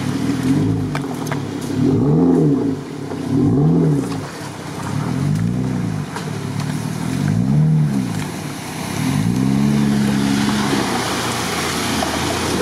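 An off-road SUV's engine revving up and down again and again, about every second and a half, as it pushes through deep water. Near the end the revs hold steadier and the splashing rush of water grows louder.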